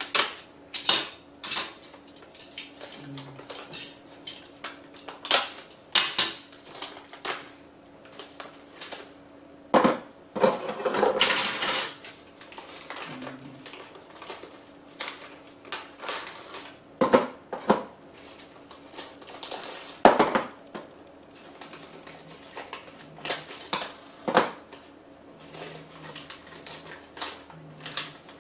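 Plastic parts bags crinkling as they are torn open and handled, with irregular clicks and clatters of small laser-cut acrylic parts being set down on a cardboard box. The longest burst of crinkling comes just before the middle.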